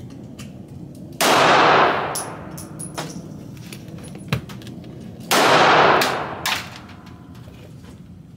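Two gunshots about four seconds apart inside an indoor shooting range, each followed by a long echoing ring off the hard walls. Lighter metallic clicks and clinks come in between.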